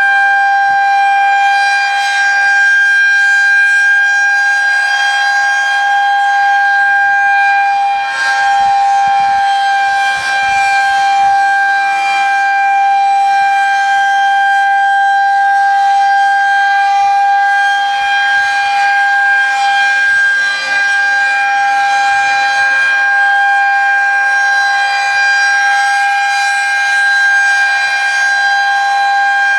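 Outdoor tornado warning siren sounding loudly on one steady pitch, with no rise or fall.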